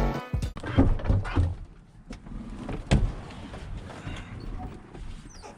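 Low rumble of a vehicle on the move, with a few sharp knocks; the loudest comes about three seconds in.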